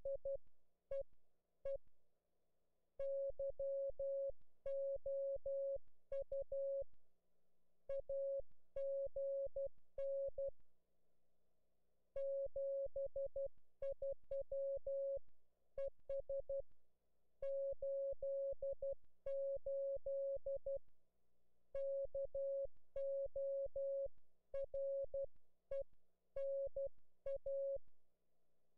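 Morse code (CW) from an Elecraft K3 amateur radio transceiver on the 10-metre band: a single steady beep keyed on and off in dots and dashes, sent in groups with short pauses between them.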